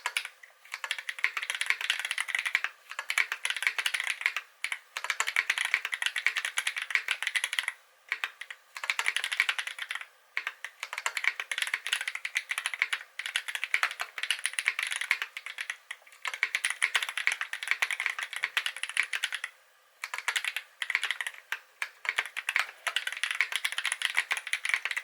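Fast typing on a KBD8x MKII custom mechanical keyboard with lubed Holy Panda tactile switches on a brass plate in a polycarbonate-top case. Runs of rapid keystrokes are broken by brief pauses every few seconds.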